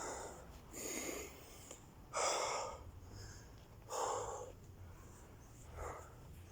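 A man's heavy breathing while he recovers after a run of burpees: about five deep, noisy breaths, the loudest about two seconds in.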